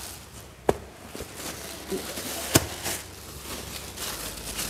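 Thin plastic carrier bag rustling and crinkling as it is handled, with two sharp clicks or knocks about two seconds apart.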